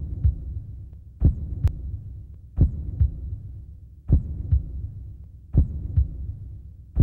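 Heartbeat sound effect: slow, heavy low double thumps (lub-dub) repeating about every one and a half seconds over a low rumble.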